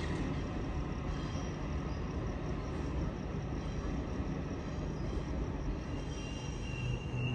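Electric double-deck suburban train pulling away along the tracks, a steady rumble. Near the end a steady high whine and a low hum come in.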